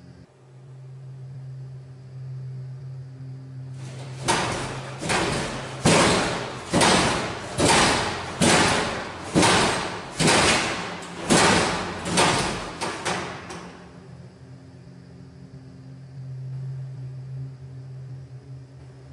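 A run of about eleven loud bangs, evenly spaced just under a second apart, each ringing on briefly as it dies away, starting about four seconds in and stopping suddenly about nine seconds later; no cause is seen.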